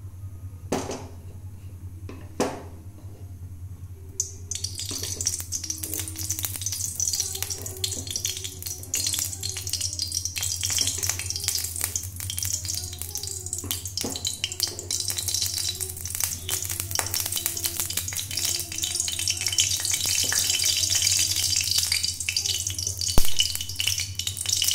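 Vegetable oil heating in a metal kadai, with a hiss and light sizzle that begin suddenly a few seconds in and grow louder. Two sharp clicks come first, and there is a single knock near the end.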